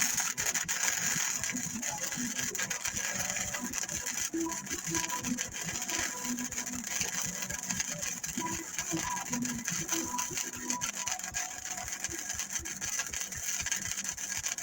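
Welding on a steel truck frame: a steady, dense arc crackle that starts abruptly.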